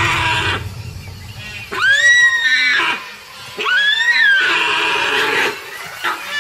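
Deer screaming in distress while a tiger holds it in the water: two high-pitched cries about two seconds apart, each rising then sagging in pitch, with water splashing between them.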